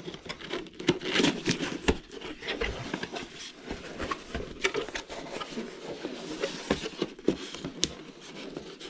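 A long cardboard box being opened and its packing handled: irregular scraping and rustling with scattered sharp taps and knocks.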